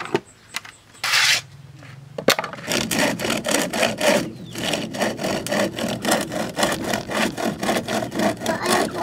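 A handsaw being handled at a wooden toolbox: a clunk, a short scrape and a sharp knock. Then the saw cuts through a small piece of wood in quick, even back-and-forth strokes.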